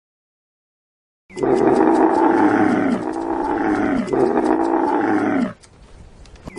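Camel bellowing: three long, pitched calls in quick succession, starting about a second in and lasting about four seconds in all.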